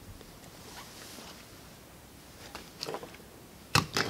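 A wire splice and its heat-shrink tubing being handled on a workbench: a few faint rustles and clicks, then a sharp, louder click near the end.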